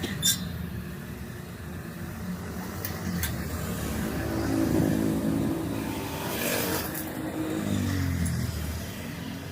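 A motor vehicle engine running, its pitch rising and then falling twice as it revs or passes by, with a sharp click at the start.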